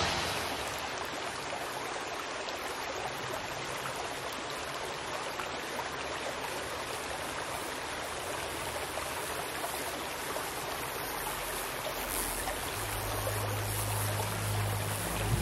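Steady rush of running water. A low musical note comes in near the end.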